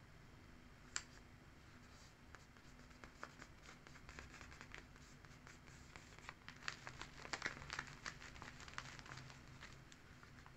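Fingers rubbing and pressing paper stickers onto a paper sticker book: soft paper rustling and scratching, with one sharp click about a second in and a busier run of rustles and taps through the middle and latter part.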